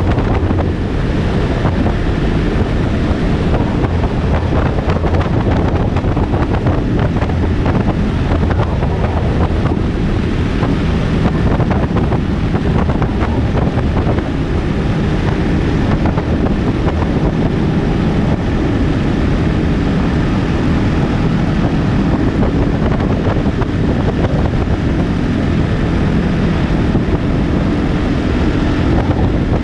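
Motorcycle riding along, its engine running steadily under heavy wind rush on the microphone.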